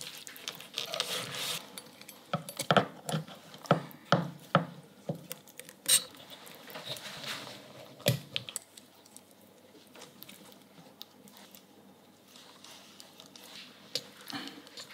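Metal rotisserie spit and its fork clicking and knocking against a wooden cutting board as a raw whole chicken is worked onto it, with a run of sharp clicks in the first half. After that, only soft handling of the chicken.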